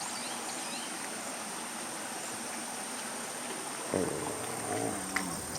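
Steady rush of running water: floodwater still flowing after the river flood. A faint voice is heard briefly about four seconds in.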